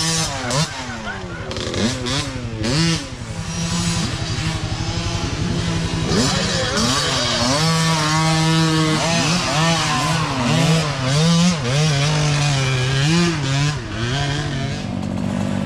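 Mini dirt bike engines revving as several bikes ride by. Their pitch rises and falls again and again with throttle and gear changes, with one engine holding a steady note through the middle.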